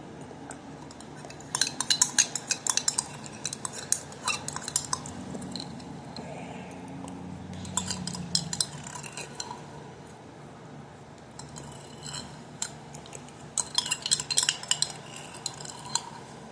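A spoon clinking and scraping against a small container of apple baby food, in several bursts of quick clicks.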